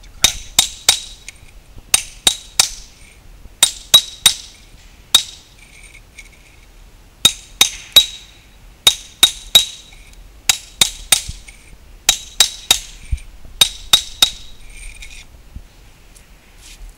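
Hammer striking a masonry chisel held on a concrete retaining-wall block: sharp metallic taps, mostly in quick groups of three, each with a short ringing tone. This is the chisel cutting a groove along a marked line so the block can be broken. The tapping stops shortly before the end.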